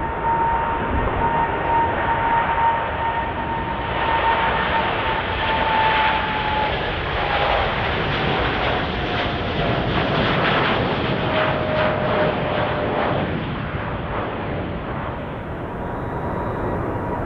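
Jet airliner engines roaring as the aircraft passes close by. A steady engine whine drops in pitch through the middle as the plane goes past, and the roar eases toward the end.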